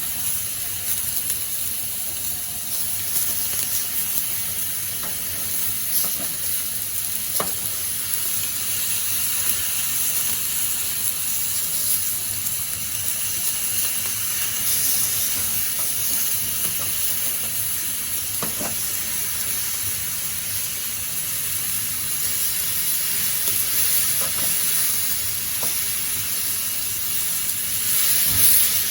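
Steady sizzling hiss from cookware heating over a lit Watts 100-yen-shop alcohol stove, with a few faint ticks.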